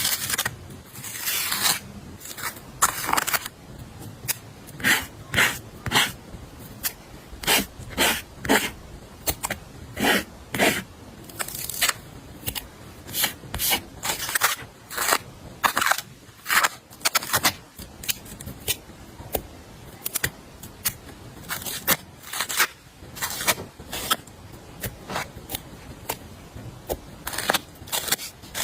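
Blind-box sticker packaging being handled and opened: irregular short crinkles and rustles of plastic and paper, about one or two a second, with some scraping.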